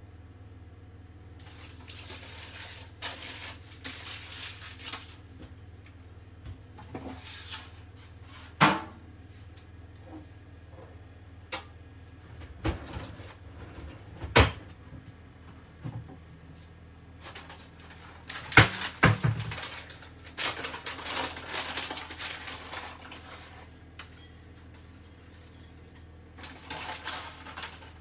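Kitchen handling sounds: rustling and crinkling of aluminium foil, and several sharp knocks and clinks of dishes and utensils on a worktop, over a low steady hum.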